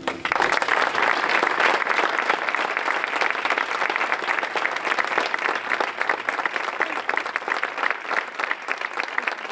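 Audience applauding, breaking out suddenly and heaviest in the first couple of seconds, then thinning toward more separate claps near the end.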